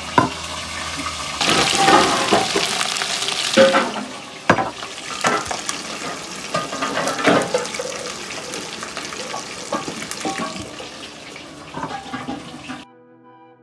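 Sizzling hiss of frying chicken with scrapes and a string of knocks from a spatula moving the fried pieces. Background music takes over near the end.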